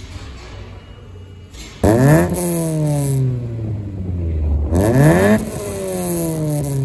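Toyota Corolla's 4A-FE four-cylinder engine heard at the exhaust, idling and then blipped twice, each rev climbing quickly and falling slowly back. This is the original exhaust with its aftermarket back box, a zingy tone that dies out as the revs go higher.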